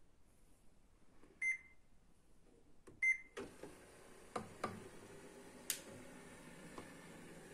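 HP LaserJet Pro MFP M127fw laser printer: two short beeps from its touchscreen panel about a second and a half apart, then about three and a half seconds in its mechanism starts up with a steady whir and a few clicks as it begins a test print, its worn paper pickup roller newly replaced.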